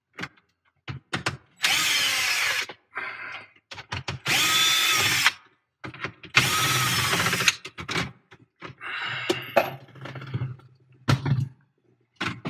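Cordless drill-driver running in short bursts, with three main runs of about a second each, a motor whine that shifts in pitch, and shorter runs and clicks between them, as screws are backed out of dashboard trim.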